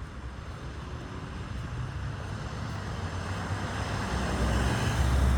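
A motor vehicle approaching along the road, its engine and tyre noise growing steadily louder.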